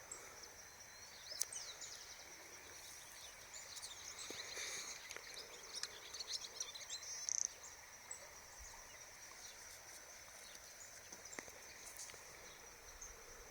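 A steady, high-pitched insect drone, like crickets, with a flurry of short bird chirps and calls between about one and seven seconds in.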